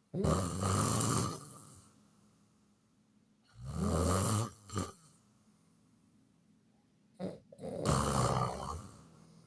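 A person snoring loudly: three rough snores roughly four seconds apart, each about a second long, with a short sharp snort after the second and another just before the third.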